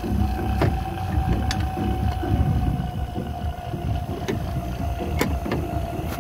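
A vacuum pump runs steadily, evacuating the car's air-conditioning system through the gauge manifold's yellow hose, with a steady whine over a low rumble and a few light clicks.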